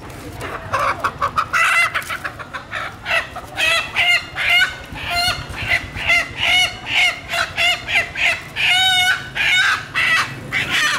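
Chickens squawking loudly, a rapid run of short pitched calls one after another, with one longer wavering squawk about three quarters of the way in.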